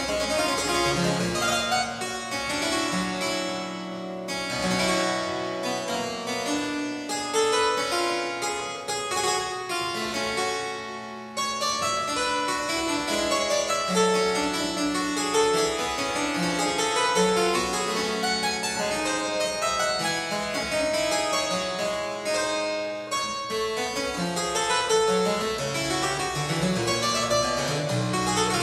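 Solo harpsichord playing a dense Baroque keyboard piece: quick runs of plucked notes over held bass notes.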